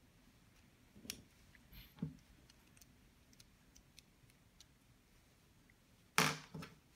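Lego Technic plastic parts clicking and tapping as they are handled and fitted together: two sharp clicks about a second apart early on, faint ticks, then a louder clatter of plastic knocking about six seconds in.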